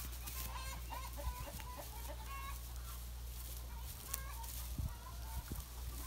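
Chickens clucking in a run of short calls, thickest in the first couple of seconds and again about four seconds in, over a steady low hum.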